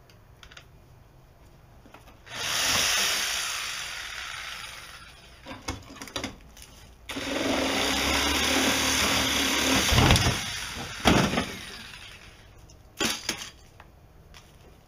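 Reciprocating saw (Sawzall) cutting through metal at a Jeep Cherokee XJ's rear hatch, in two runs: one of about three seconds that fades out, then a longer one of about five seconds. Short metal knocks and clanks fall between and after the runs.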